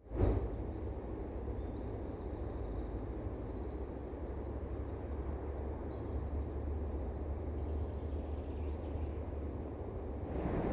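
Forest ambience: a steady low rush of wind with small birds chirping in quick, high twitters over the first few seconds, thinning out after that. Near the end the sound grows a little louder and a steady high buzz comes in.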